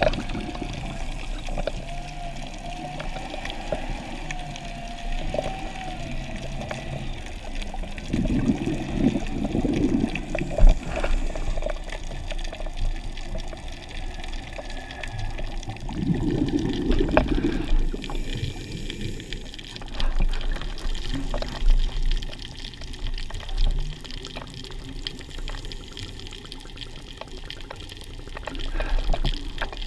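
Underwater water noise heard through a camera housing: a scuba diver's exhaled bubbles gurgling in bursts over a steady hiss, the loudest at about eight and sixteen seconds in.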